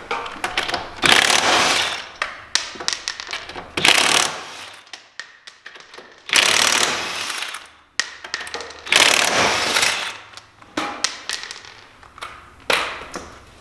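Impact wrench run in several short bursts, zipping lug nuts off a Can-Am Maverick X3 wheel, with small clanks of nuts and tools between bursts.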